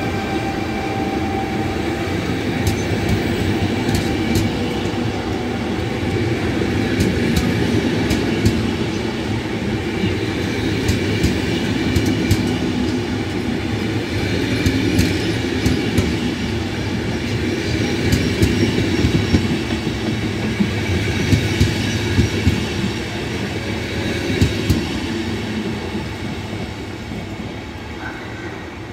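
A passenger train hauled by an E.464 electric locomotive running past on the rails: a steady rumble of wheels with scattered sharp clicks over the rail joints. It fades near the end as the train draws away.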